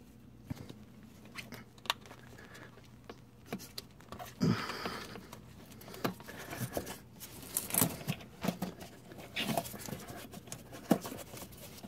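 Handling noise: scattered light clicks and rustles as a gloved hand works an ABS wheel speed sensor cable into its plastic channels and clips, with a louder rustle about four and a half seconds in.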